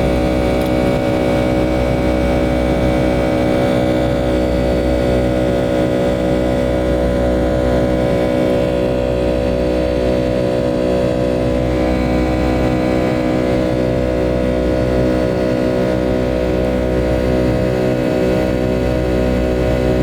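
Boeing 757-200's jet engines running at high power during takeoff: a steady drone of several held tones over a low rumble.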